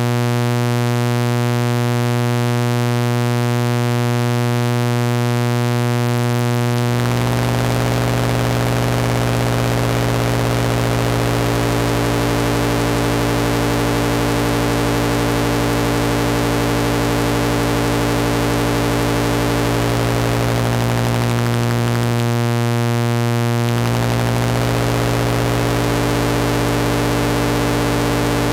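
Malekko Richter Oscillator II's sawtooth wave as a steady low drone, phase-modulated by a second oscillator. Clean at first, the tone turns rougher and buzzier about seven seconds in as the phase modulation amount is raised, then clears for a moment about three quarters of the way through before the buzz returns.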